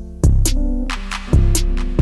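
Background music with a beat and held chords, with strong low beats about a quarter-second and a second and a third in.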